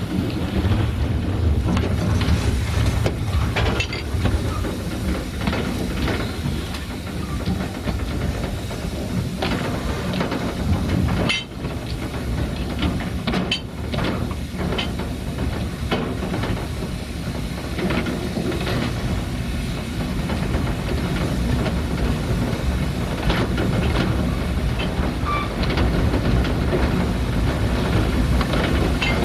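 Narrow-gauge steam locomotive and train running, with a steady hiss of steam and scattered clanks and knocks from the wheels and couplings on the rails.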